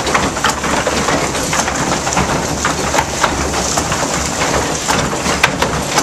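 Water-powered sawmill machinery running: the waterwheel-driven friction winch hauling the saw carriage back, heard as a dense, steady rattle of many small knocks over a low rumble.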